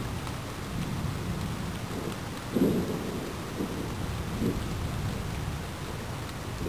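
Thunder rumbling over steady rain. The rumble swells to its loudest about two and a half seconds in, with a couple of smaller swells after it.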